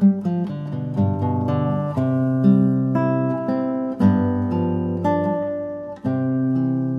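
Background music: an acoustic guitar picking single notes over held low bass notes, with the chord changing every second or two.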